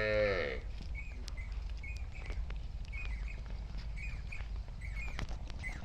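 A cow's moo ends, falling off about half a second in; after it, small birds chirp in short calls again and again over a low rumble, with scattered light clicks.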